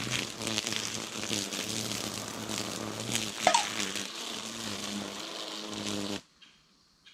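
Battery-powered string trimmer with nylon cord running with a steady buzzing hum and whir, with one brief sharp sound about three and a half seconds in; the sound cuts off abruptly about six seconds in, leaving near silence.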